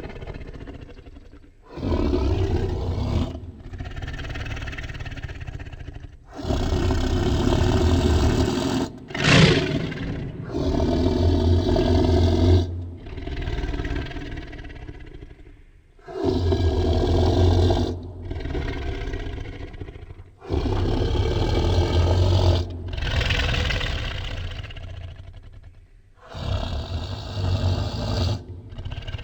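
Tiger roaring again and again, about ten roars in a row, each one to three seconds long with short gaps between them; about nine seconds in comes one shorter, sharper snarl.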